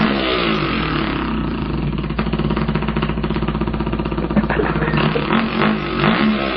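A man imitating a dirt bike engine with his voice: a continuous buzzing rev that bends in pitch near the start and again near the end, and holds fairly steady in between.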